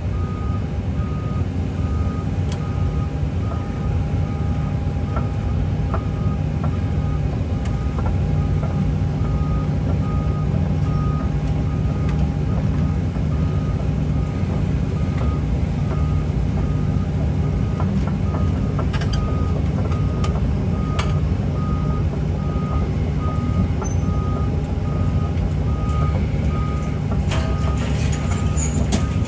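Excavator's diesel engine running steadily under load while its travel alarm beeps in an even repeating pattern as the machine tracks.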